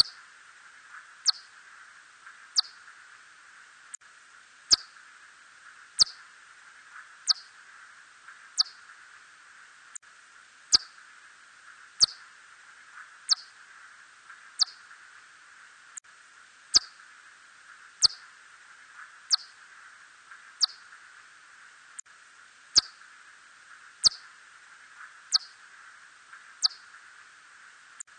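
Red bat calls: a short, steeply falling chirp about every 1.3 seconds, some starting with a sharp click, over a steady hiss.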